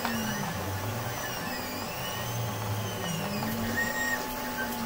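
3D printer's stepper motors whining, their pitch sweeping up and down over and over every couple of seconds as the print head moves, over a steady hum.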